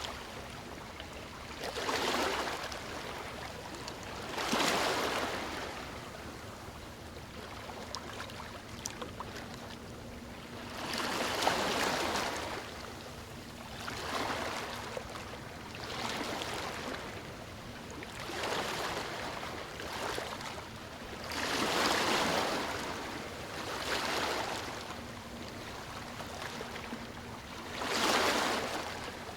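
Sea waves washing onto a beach: a surge of surf every few seconds, at uneven intervals, with a quieter wash between.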